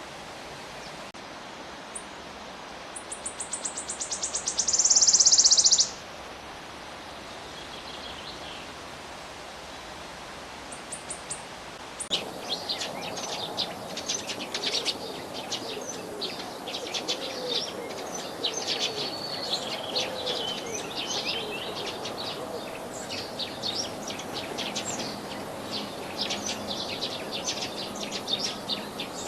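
A loud, rapid buzzing trill lasting about three seconds, then, from about twelve seconds in, a flock of house sparrows chirping over one another.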